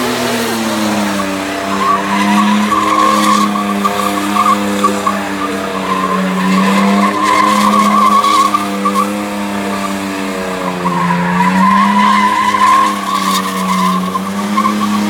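Ford EL Falcon burnout car held at high, steady revs while its rear tyres spin and squeal on the pad. The revs dip briefly about a second in and again around ten to eleven seconds, then climb back.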